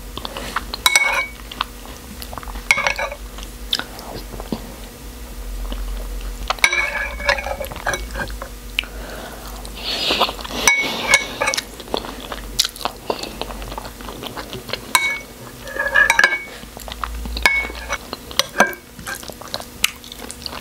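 A metal spoon clinking and scraping against bowls, with close-miked chewing, as a person eats pap (fermented corn porridge) and beans. The clicks come in scattered clusters rather than a steady rhythm.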